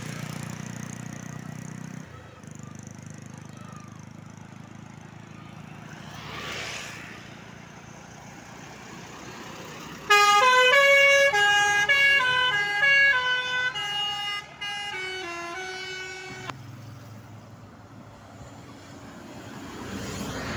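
Basuri musical air horn on a Mercedes-Benz OF 917 tour bus playing a tune of stepped notes for about six seconds, starting about halfway through. Before and after it, bus engines run with a low hum.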